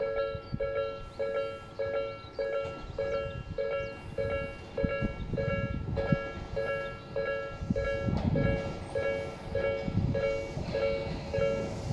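Japanese level-crossing warning bell ringing steadily, a two-note electronic ding repeating a little under twice a second, while an approaching Tobu electric train's rumble of wheels and motors grows louder from about halfway through.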